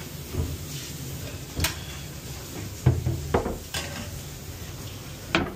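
Stainless-steel pans and utensils clanking against metal in a restaurant kitchen: about six sharp, irregularly spaced knocks over a steady low background hum.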